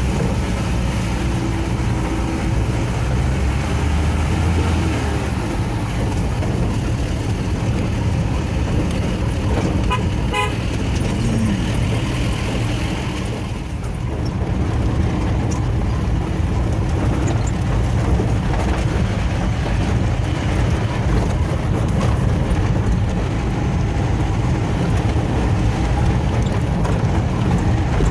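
Vehicle engine and road noise heard from inside the cab while driving a rough dirt track: a steady rumble, with a brief dip about halfway through.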